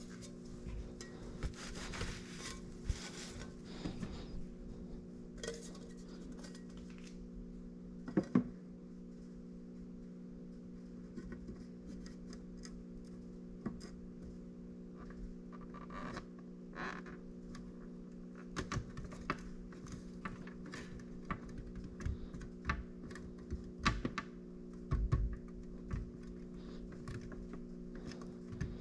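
Scattered small clicks, knocks and scrapes of hands working on car parts, the loudest knock about eight seconds in, over a steady low hum.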